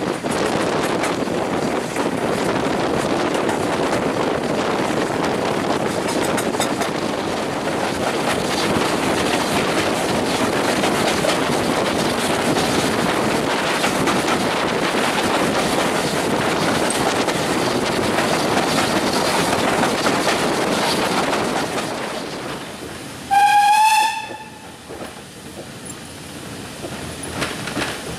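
Steam-hauled train running, heard from an open carriage window as a steady noise of wind and wheels. Near the end the locomotive's steam whistle gives one short toot, rising slightly in pitch, and the running noise is quieter after it.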